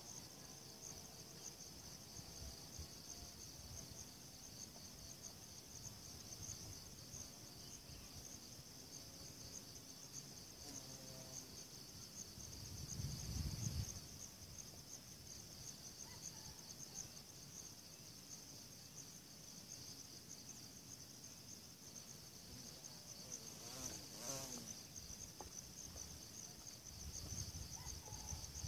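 Insects chirring in a steady, high-pitched chorus with a fast even pulse. A brief low rumble comes about halfway through.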